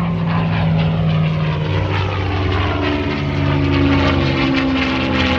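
Single-engine propeller aerobatic airplane flying a display pass at full power. Its engine note falls, then rises again about halfway through.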